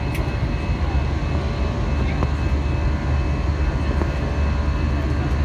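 Steady low drone of an Airbus A321-200's jet engines with rushing airflow, heard inside the cabin during the climb after takeoff.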